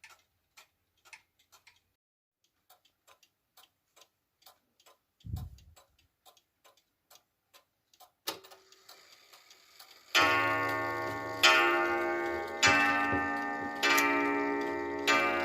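Junghans Vienna-style wall clock ticking faintly and steadily, then, after a single click, striking on its coil gong: about five strikes roughly a second and a bit apart, each ringing on and fading under the next. A dull low thump sounds about five seconds in.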